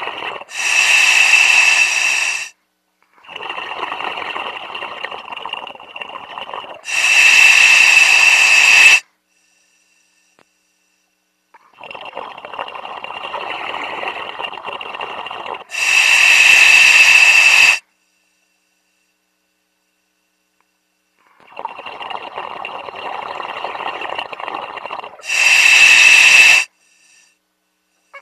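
A diver's breathing heard over the dive radio: three slow breaths about nine seconds apart, each a rushing hiss followed by a louder, sharper hiss of about two seconds, with silent gaps between.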